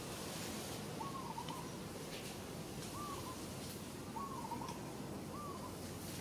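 Short calls that rise and fall, about five at irregular intervals, over a steady outdoor hiss.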